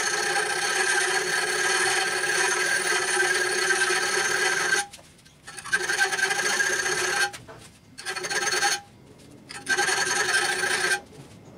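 A round file rasping back and forth inside a bolt hole of a steel bracket clamped in a bench vise, enlarging the hole into a slot for the bolt. The steel rings with steady tones under the strokes, in one long bout and three shorter ones with brief pauses between.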